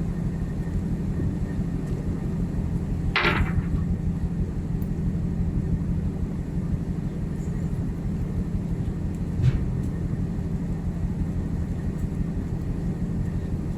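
Steady low hum of a ship's machinery, with a short louder noise about three seconds in and a faint knock later on.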